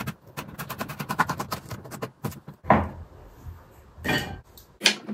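Kitchen knife slicing a green pepper into strips on a wooden cutting board: quick blade taps about eight a second for a couple of seconds, then a few separate louder knocks.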